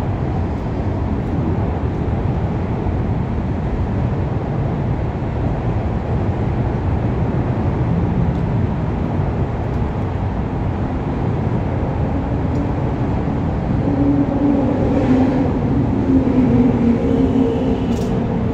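Steady low rumble of city traffic, with a steady hum coming in near the end.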